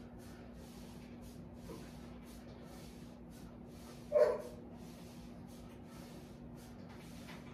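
A single short, bark-like yelp about four seconds in, over soft, rapid hissing breaths and a low steady hum.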